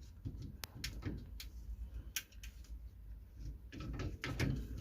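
Light handling of a plastic dishwasher spray arm: a few separate sharp clicks, then a denser run of rubbing and knocking near the end.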